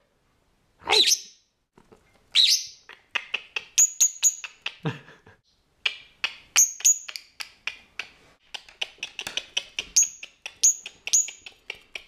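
Masked lovebird calling: two longer calls, then a fast run of sharp, high-pitched chirps and clicks with a short pause in the middle.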